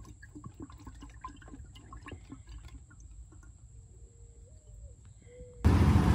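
Motor oil pouring from a jug through a cut-off plastic bottle funnel into the engine's oil filler: a faint, crackly trickle and gurgle as the engine is filled with fresh oil. About five and a half seconds in it cuts abruptly to much louder steady noise.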